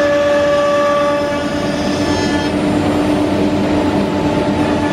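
Holztek CNC nesting router cutting a wood panel: a steady spindle whine over machining noise. Some of the higher tones of the whine drop away about halfway through, leaving a lower whine and rougher cutting noise.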